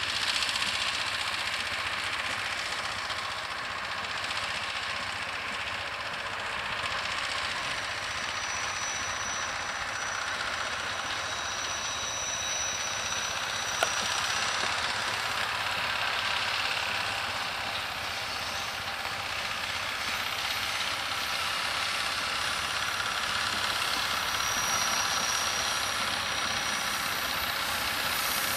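Diesel locomotive at the head of a passenger train, its engine running steadily as the train approaches. A single sharp click sounds about halfway through.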